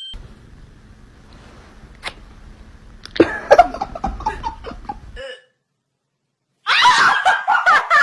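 Human laughter in two stretches: one starting about three seconds in, then after a brief silence a louder burst near the end.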